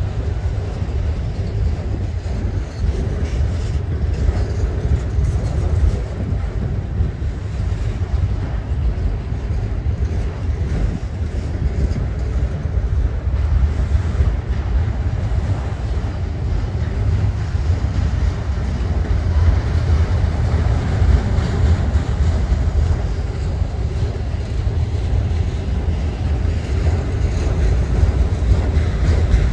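Freight train of autorack and tank cars rolling past close by, a steady low rumble of wheels on rail that grows a little louder near the end.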